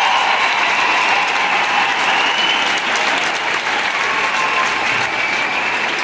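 A large concert crowd applauding at the end of a song, a dense steady clapping that slowly grows quieter.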